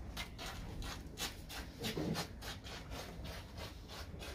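Rhythmic scraping or rubbing, about three even strokes a second, keeping up steadily.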